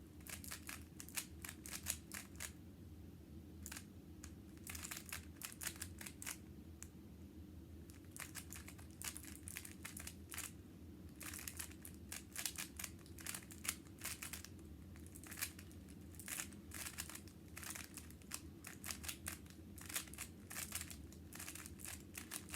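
Rubik's cube being turned quickly during a speed solve: faint plastic clicking and rattling of the layers in quick irregular runs, with short pauses between them.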